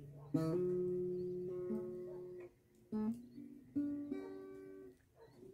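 Music: about four acoustic guitar chords strummed and left to ring out, with short gaps between them, in an instrumental pause of a song.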